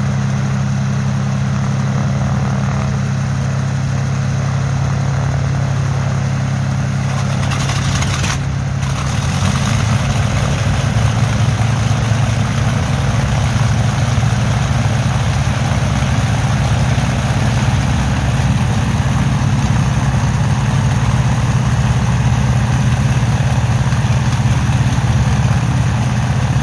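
Dassault Flamant's air-cooled SNECMA 12S inverted V12 piston engines running at idle with their propellers turning, a steady low drone. About nine or ten seconds in the sound thickens and gets a little louder, then holds steady.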